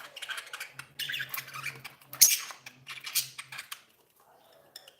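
Budgerigars chirping and chattering in quick short calls, the loudest about two seconds in, falling away near the end.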